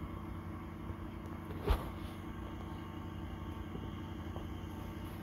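Steady low mechanical hum, like a fan or motor running, with a single knock about a second and a half in.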